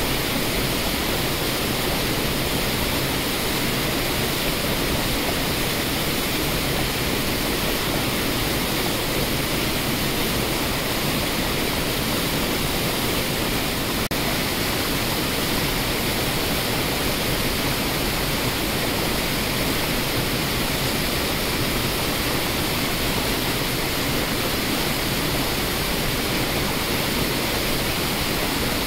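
Waterfall rushing over rocks: a steady, even noise of falling water with no change in level.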